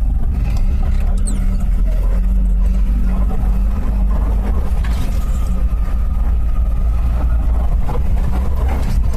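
Suzuki Samurai 4x4's engine running as it drives along a dirt track: a steady low rumble.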